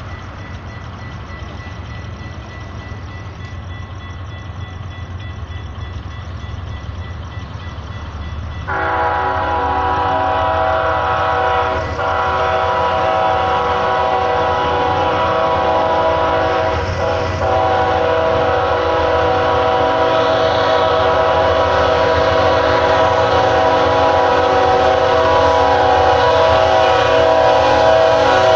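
BNSF freight locomotive's air horn sounding several notes at once in a long blast for the grade crossing. It starts suddenly about nine seconds in, after a low rumble, breaks briefly twice, and grows louder as the train approaches.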